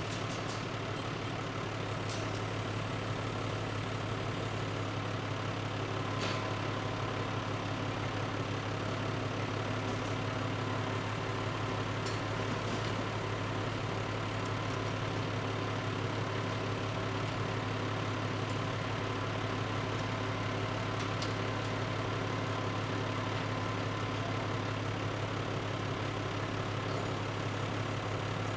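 Engine of a work vehicle idling steadily at the crossing demolition, a constant low hum, with a few light clicks.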